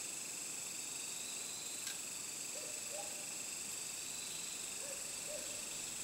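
Steady high-pitched night chorus of crickets or similar insects, several pitches held at once without a break. A few faint short calls sound lower down in the middle and near the end, and there is a single click just before two seconds in.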